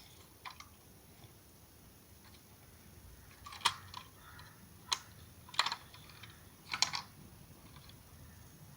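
Light plastic-and-metal clicks from the doors of a toy Toyota Vellfire model being opened and shut by hand: four sharp clicks spread between about three and a half and seven seconds in.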